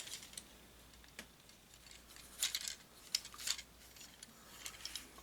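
Faint, scattered clicks and light rustling of a plastic Transformers action figure being handled.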